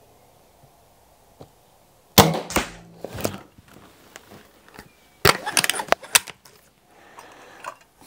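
A Weihrauch HW99S .22 spring-piston break-barrel air rifle firing about two seconds in: a sharp crack with a brief ringing twang. About three seconds later come a clunk and a quick run of clicks as the rifle is handled and its barrel broken open.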